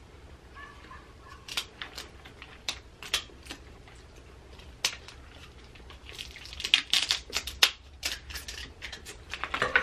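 Sharp clicks and crackling crunches of cooked crab-leg shell being snipped with kitchen scissors and broken apart by hand, thickest and loudest about six to eight seconds in.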